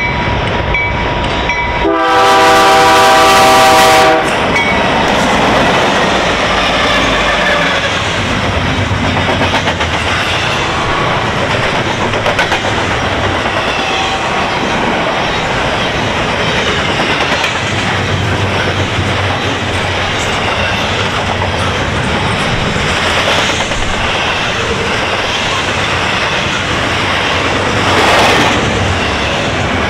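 CN double-stack intermodal freight train at about 49 mph: the lead locomotive's horn sounds one blast of about two seconds, loudest near the start. Then the container well cars roll past with a steady rumble and the clickety-clack of wheels over the rail joints.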